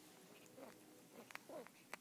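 Puppies nursing at their mother: faint suckling and smacking, with short squeaky sounds and a couple of sharp clicks near the end.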